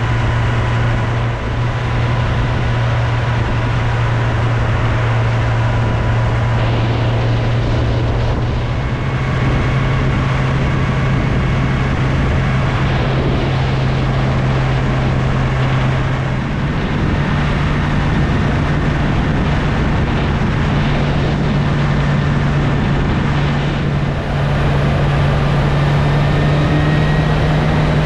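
Motorcycle engine running at a steady cruise over a constant rush of wind and road noise. The engine note steps up a little about two-thirds of the way through and edges higher near the end.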